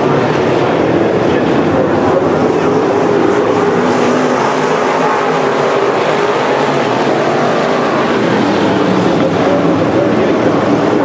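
A pack of dirt-track Modified race cars at speed, their V8 engines running hard together in a loud, steady blend.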